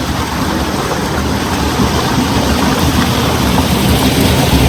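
Waterfall water rushing and splashing, a steady loud rush.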